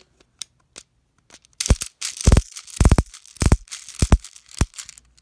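Clear plastic airsoft speed loader pumped against a pistol magazine: a run of about eight sharp plastic clacks starting about a second and a half in, as BBs are pushed into the magazine until it is full.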